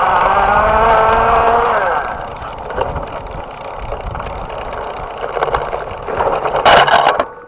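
Electric bike motor whining, its pitch falling as it winds down and stops about two seconds in. Then comes a light clicking rattle of the drivetrain, and a loud clatter near the end.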